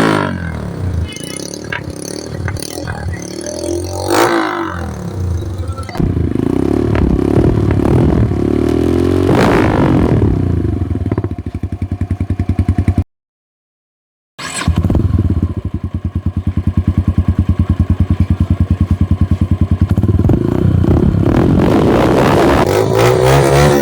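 Motorcycle with an aftermarket exhaust running and revved in a few rising-and-falling blips, then held at a steady, fast pulsing run. The sound drops out completely for a moment a little past the middle.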